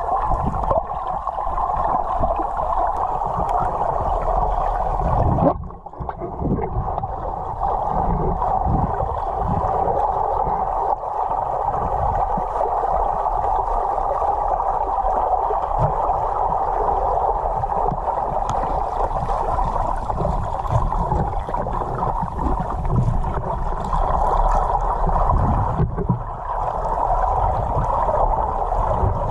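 Muffled underwater sound picked up by a camera in a waterproof housing: a steady rush of water with irregular low thuds as a spearfisher swims.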